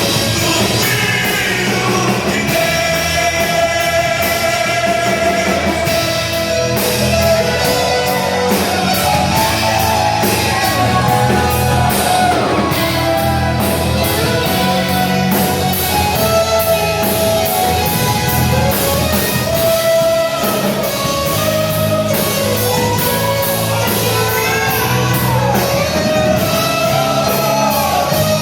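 Rock-style worship song played by a band, with singing over electric guitar and a steady low accompaniment.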